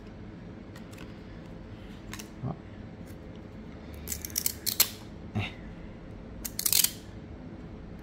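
Trading cards being slid and flicked through by hand: short, sharp scrapes of card stock against card stock. They come in small clusters, a couple about two seconds in, several between four and five seconds, and more near seven seconds.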